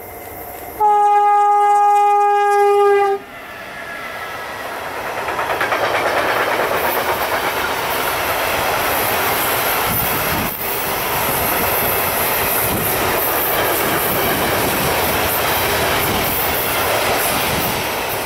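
Train horn sounding one steady tone for about two and a half seconds. The train then comes past, and its wheel-on-rail rolling noise builds and stays loud.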